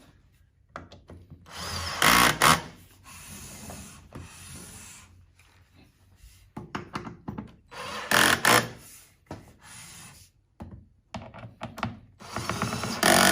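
Power drill driving the chair's assembly screws tight into the wood frame, in three short runs with pauses between.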